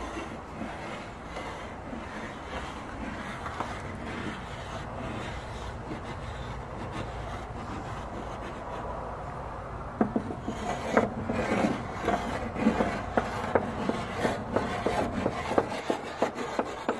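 Chalk scraping and rubbing on plywood window boards as words are written, over a low wind rumble. From about ten seconds in, quick sharp taps of chalk strokes on the wood come thick and fast.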